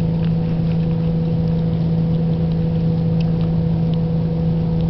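Steady low machine hum, unchanging, with a few faint clicks.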